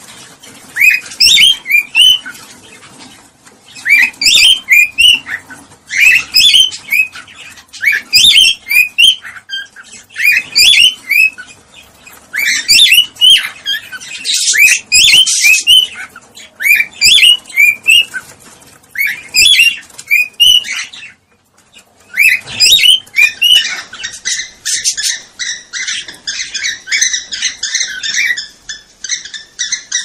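Cockatiels making their mating calls: short phrases of quick whistled chirps and warbles every second or two, breaking off briefly about two-thirds of the way through, then a denser, unbroken run of chattering.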